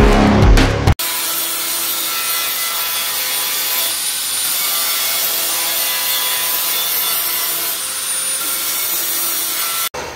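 Sanding the paint on a car's front fender: a steady, unbroken abrasive hiss. It follows a second of drum-heavy intro music that cuts off abruptly.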